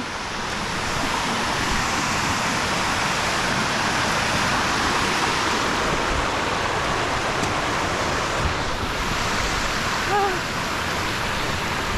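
Large waterfall and its strong current rushing in a steady, loud wash of falling water. A short voice sound breaks in briefly about ten seconds in.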